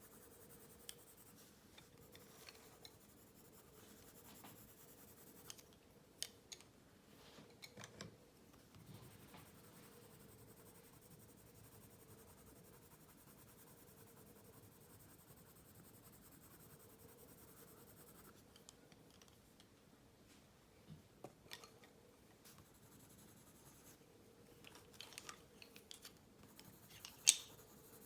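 Faint pencil strokes scratching on paper, with scattered light ticks and taps, and one sharper click near the end, over a faint steady hum.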